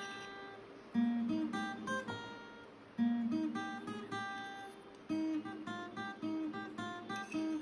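Background music: a plucked acoustic guitar picking a melody over deeper bass notes that come in about every two seconds.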